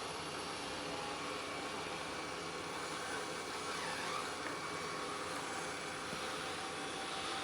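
Roborock Qrevo Pro robot vacuum running with a steady, even motor and airflow hiss.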